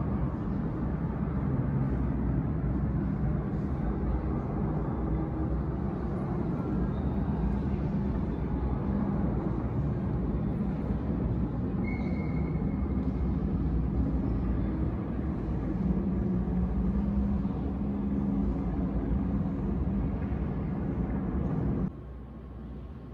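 Deep, steady rumbling roar from a video-art installation's soundtrack, played loud in the hall, with a low hum under it. Near the end it drops suddenly to a much quieter rumble.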